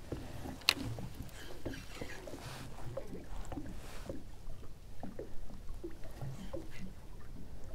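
Water lapping and slapping softly against a fishing boat's hull, with small knocks and one sharp click about a second in.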